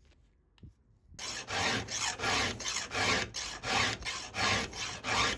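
Round chainsaw file rasping across the cutting teeth of a chain held in a vise, in quick even strokes about three a second, starting about a second in after near silence.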